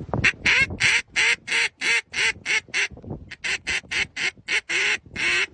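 A duck quacking in a fast run of short calls, about three a second, with a brief pause about three seconds in.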